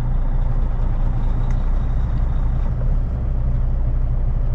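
Kenworth T880 semi truck's Cummins diesel engine running, heard from inside the cab as a steady low drone with road noise.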